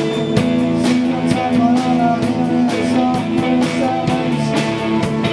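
Live post-punk band playing: electric guitars and bass guitar holding chords over a steady drum-kit beat, with a wavering lead line in the middle.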